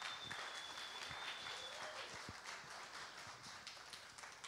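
Congregation clapping, with one long high whistle over the applause for about the first two seconds; the clapping thins out near the end.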